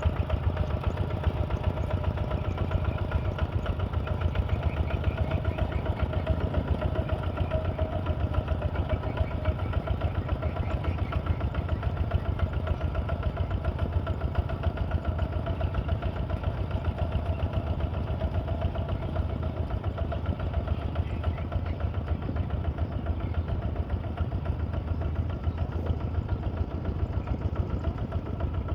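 Heavy machine's diesel engine running steadily with an even, rapid pulse and no change in speed.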